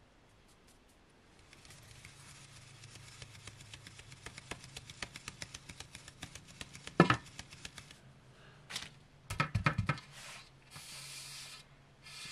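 Flour being sifted through a round hand sieve: a fast, steady run of light taps and patter as the sieve is shaken. About seven seconds in there is one sharp knock, then a cluster of knocks and a short hiss near the end.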